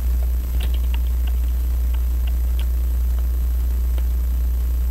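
A steady low hum, with a few faint light clicks of metal hand-puller tools being worked under the hands of a clock dial.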